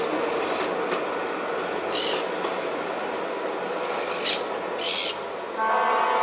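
EMEPA Alerce diesel railcar running steadily as it pulls away, with a few short high squeaks about two, four and five seconds in. Near the end its horn starts to sound.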